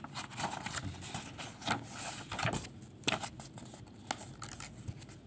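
Handling noise: soft scattered clicks and rustles, a camera being moved about over a book close to its microphone.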